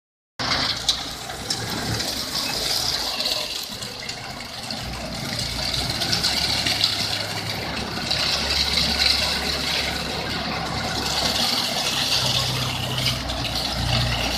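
Self-loading concrete mixer's diesel engine running steadily, with a constant hiss above it; the engine note steps up about eleven and a half seconds in.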